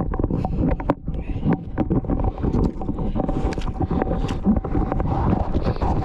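Wind buffeting the microphone over shallow water sloshing, with many short sharp splashes and knocks as a freshly caught weakfish is handled in the water.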